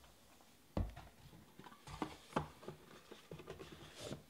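Hands handling a plastic graded-card slab and a cardboard card box on a table: a few short knocks and scuffs, the loudest about a second in, and a brief rustle near the end.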